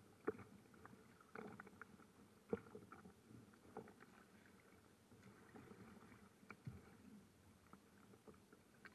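Faint, irregular slaps of small waves against a floating boat's hull, a second or more apart, over a low wash of choppy water.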